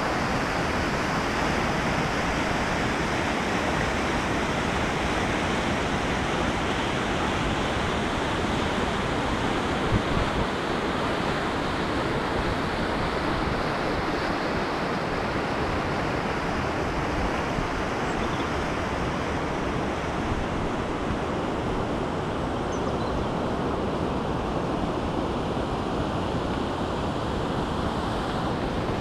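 Fast-flowing river rushing over rapids and a small weir: a steady, even rush of water.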